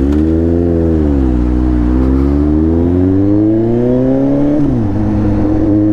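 Suzuki GSX-S750 inline-four engine pulling away under acceleration: the revs rise, dip, then climb steadily before falling sharply at a gear change near the end and holding steady after it.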